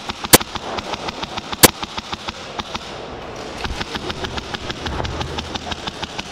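Airsoft guns firing: a patter of sharp shots, several per second, with two much louder cracks about a third of a second and a second and a half in.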